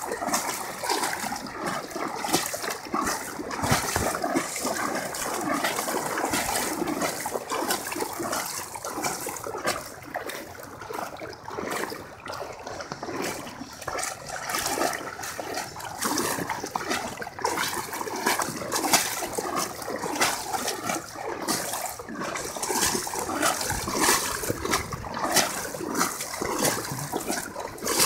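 Floodwater splashing and trickling continuously, with many small, irregular splashes.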